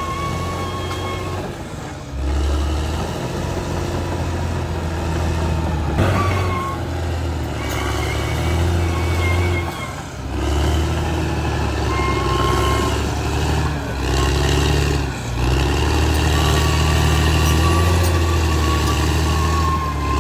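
Caterpillar D6R XL bulldozer's diesel engine working steadily, its note dipping briefly several times, with a high whine coming and going over it.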